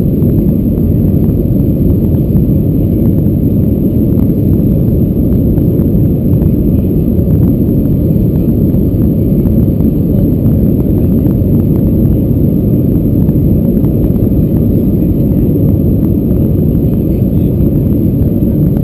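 Steady, loud, low cabin rumble of an Airbus A320-214 climbing out after takeoff: its CFM56 jet engines and the airflow past the fuselage, heard from a window seat.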